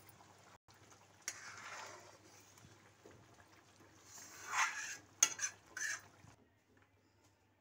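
A metal spoon stirring kadai paneer gravy in a metal kadai, scraping the pan, with three sharp clinks of spoon on metal about five seconds in.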